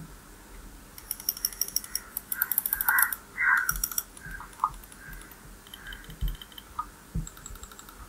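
Logitech G102 Prodigy gaming mouse buttons clicked in quick runs: a fast burst of clicks from about a second in to three seconds, a few more just after, and a short run near the end.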